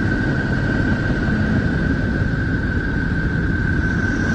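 Sonified recording presented as the sound of the planet Neptune: electromagnetic wave data converted to audio. It is a steady rumbling noise with one constant high tone held over it.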